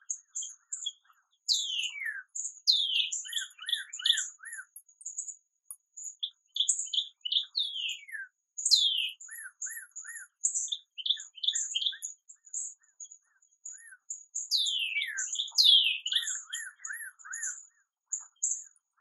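Dawn birdsong: small birds chirping and singing, with a steady scatter of high chips and several falling whistles, each followed by quick runs of three to five short lower notes.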